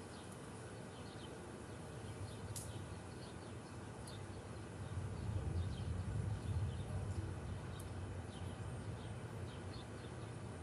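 Outdoor ambience: faint birds chirping over a steady hiss, with a low rumble that swells about halfway through for a couple of seconds and then eases.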